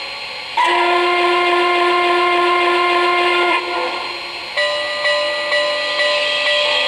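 Onboard sound system of an O-gauge Norfolk and Western 2-8-8-2 articulated steam locomotive model sounding a chord steam whistle. One long blast starts about half a second in and lasts about three seconds. About a second after it stops, a steady ringing begins, struck about twice a second, like the locomotive's bell.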